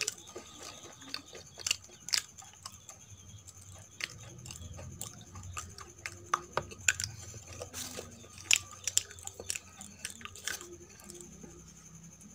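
Close-miked chewing of Indian sweets: irregular mouth clicks and smacks, a few of them sharp.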